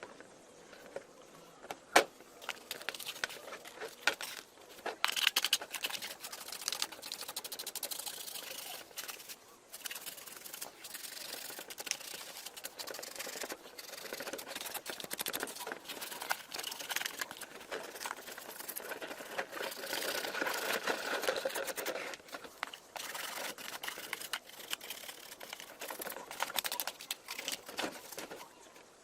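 Hair clipper being handled and worked on by hand: irregular clicks, scrapes and rustling, with one sharp click about two seconds in. No motor is running.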